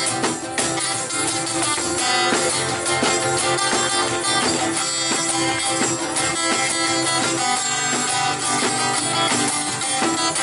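Two acoustic guitars strummed together in a steady rhythm, with a tambourine played along: an instrumental break between sung verses.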